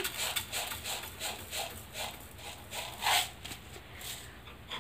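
Light, irregular clinks and scrapes of a spoon against a cooking pan as sugar is spooned into roasted gram flour, with the loudest tap about three seconds in.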